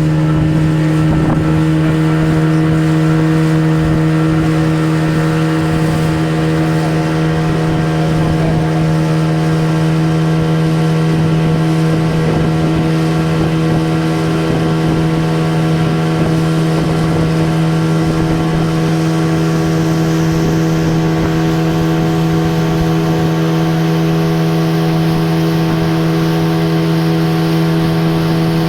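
Tour boat's engine running at a steady speed, a constant drone with an unchanging pitch.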